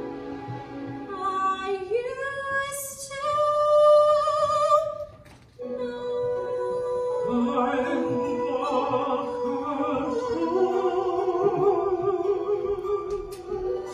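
A woman singing long held notes with vibrato over musical accompaniment, as in a musical-theatre ballad. The voice climbs to its loudest high note about four seconds in, breaks off briefly, then goes on with sustained lower notes.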